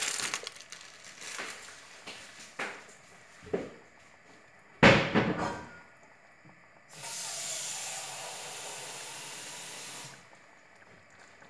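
Kitchen clatter of pans and utensils: a few knocks, the loudest a sharp clank about five seconds in, then a steady hiss for about three seconds that starts and cuts off abruptly.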